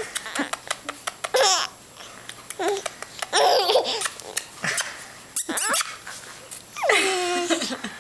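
A baby laughing and giggling in several short bursts, the longest near the end, with brief clicks between them.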